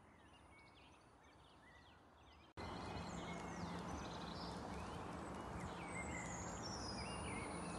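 Outdoor ambience of small songbirds chirping and singing in the background over a steady hiss of background noise. The background gets suddenly louder about two and a half seconds in.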